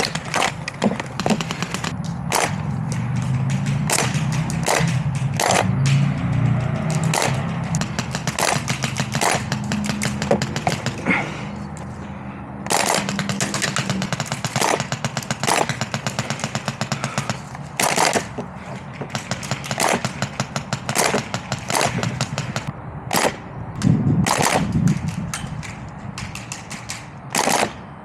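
Airsoft guns firing in rapid bursts and single shots, on and off, with a couple of short lulls.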